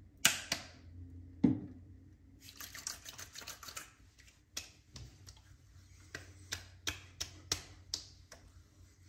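Wet hands slapping and patting witch hazel onto a freshly shaved face: a string of sharp pats, a few a second, with two loud slaps near the start.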